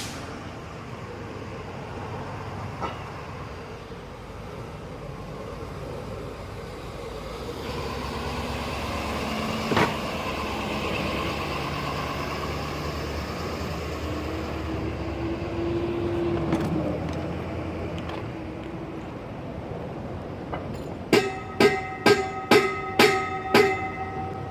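A vehicle passing, its noise swelling and fading, then near the end about seven quick, ringing metallic strikes, metal being struck repeatedly.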